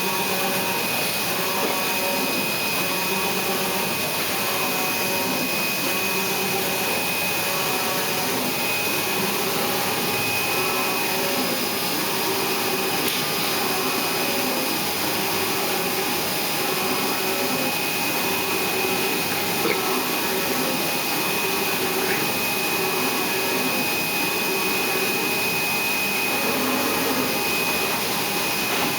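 Flatbed cutting machine for cardboard garment patterns running: a steady blower-like rush, as of its vacuum hold-down table, with a constant high whine over it.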